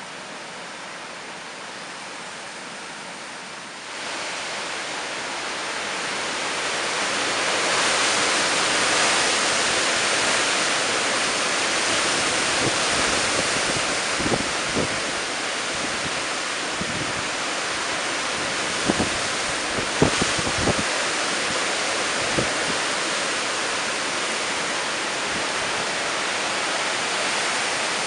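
Hurricane wind and heavy rain: a dense, steady hiss of downpour and gusting wind that grows louder about four seconds in. Several short low thumps of wind buffeting the microphone come in the middle.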